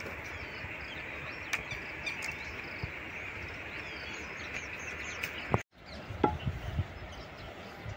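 Outdoor farm ambience: a steady high insect drone with birds chirping over it. The sound breaks off for an instant a little past halfway, and a few soft low knocks follow.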